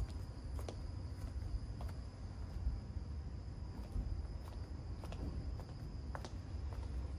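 Footsteps of sandals on brick paving, a sharp step about every half second, over a steady high-pitched tone and low rumble.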